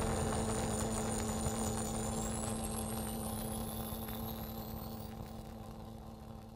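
The song's closing drone fading out: several held tones over a noisy hiss, with a thin high tone gliding upward, all dying away steadily.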